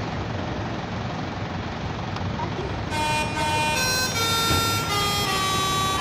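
Steady background rumble, then about halfway through a tour coach's telolet horn starts playing its tune: several steady horn tones sounding together, stepping to new pitches every half second or so.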